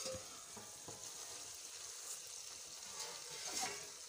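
Tomato and potato sabzi sizzling as it fries in a kadhai over a wood fire, a steady hiss, with a light knock right at the start.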